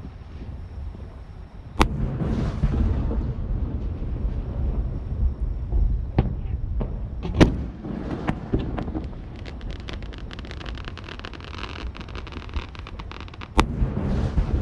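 Fireworks going off: three sharp bangs, each followed by a brief hiss, with smaller pops between them and a stretch of dense crackling past the middle. A steady low rumble of wind on the microphone runs underneath.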